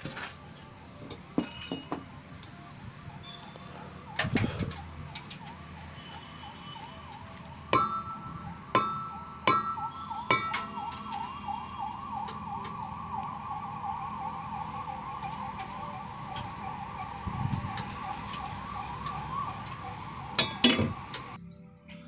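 Sharp metallic clinks and knocks of hand tools on engine parts, coming irregularly. About eight seconds in, a siren-like warbling tone starts in the background and repeats several times a second until just before the end.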